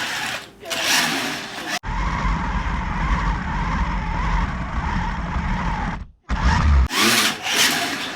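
Battery-powered Tyco R/C Nitro Dozer toy car's electric motor and gears whirring as it spins donuts. About two seconds in the sound cuts abruptly to a heavy low rumble. The rumble breaks off near the six-second mark before the brighter whirring returns.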